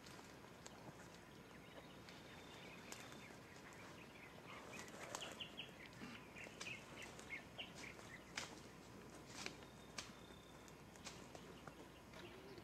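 Faint forest ambience: a bird chirping in a quick run of short notes around the middle, with scattered sharp clicks and snaps throughout.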